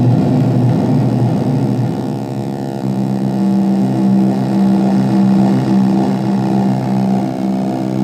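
Korg Monotron Delay analogue synthesizer droning through a portable speaker as its knobs are turned: a buzzy, low drone that is rough and wavering at first, then settles into one steady pitch about three seconds in.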